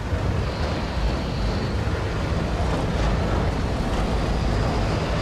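Steady city street noise with a low rumble, with a faint high whine that comes and goes twice.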